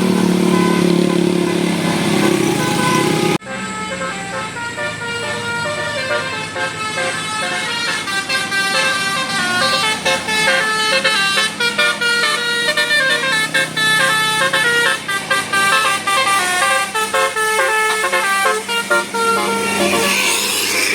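Indonesian bus 'telolet basuri' multi-tone horn playing a fast tune of short stepped notes. A few seconds in the sound breaks off sharply and the horn melody starts up again, running on until just before the end.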